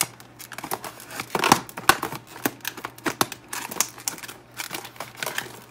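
Stiff plastic blister packaging being handled, crackling with irregular sharp clicks.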